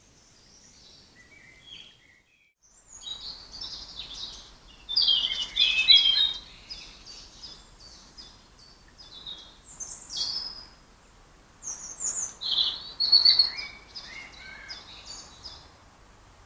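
Woodland songbirds singing: quick, varied chirping phrases that come and go, loudest about five seconds in and again about twelve seconds in. The sound drops out completely for a moment about two seconds in.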